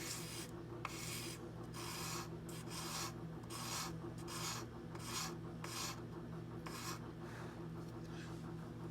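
Tweezer tips dragged across 600-grit sandpaper in single-direction strokes, a repeated dry scraping about once a second, to flatten and sharpen the tips so they meet evenly.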